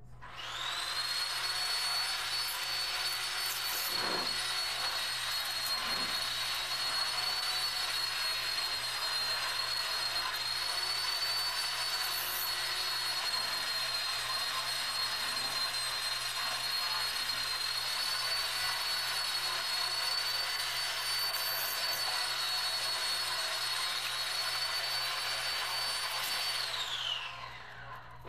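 A high-speed electric motor, such as a vacuum or blower, spins up to a steady high whine over a broad rushing hiss, runs evenly, then winds down with a falling whine near the end. A few light knocks sound while it runs.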